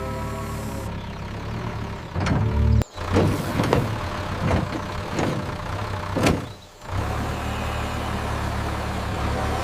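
Heavy machine's engine running steadily. In the middle it breaks into about four seconds of sharp clanks and knocks with a couple of abrupt drop-outs, then the steady engine returns.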